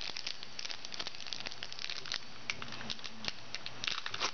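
Foil trading-card pack wrapper crinkling with quick, irregular crackles as it is torn open and handled.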